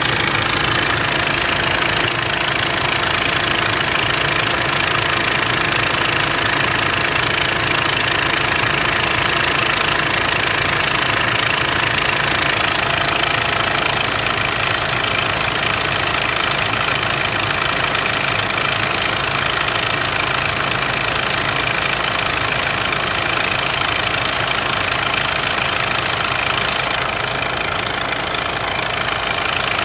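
2005 Kia Sorento's 2.5-litre D4CB common-rail diesel engine idling steadily with a rattling clatter, which the owner suspects is a bad timing chain.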